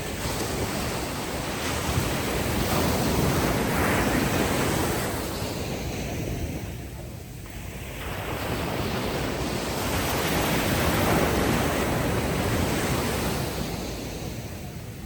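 Ocean waves washing up on a sandy beach, the surf swelling and falling back twice, about seven seconds apart.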